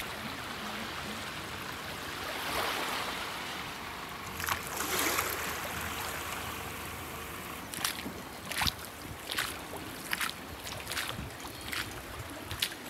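Wellington boots splashing through shallow floodwater on a pavement: footsteps at walking pace in the second half, over a steady wash of moving water and wind.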